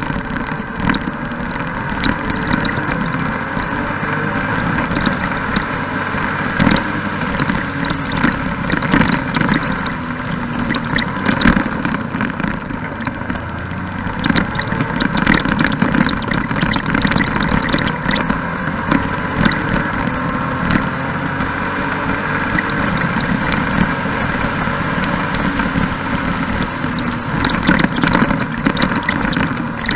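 Can-Am Spyder F3-S three-wheeler under way, its three-cylinder engine running steadily under a constant rush of wind and road noise, with many small knocks from bumps and buffeting.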